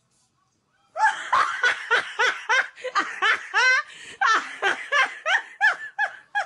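A person laughing: a fast run of ha-ha bursts that slide up and down in pitch, starting about a second in after a brief silence.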